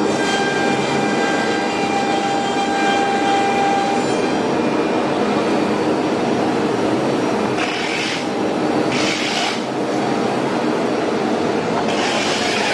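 Automatic loading and unloading CNC nesting router line running: a steady machine noise with a whine that stops about four seconds in, and three short hisses in the second half.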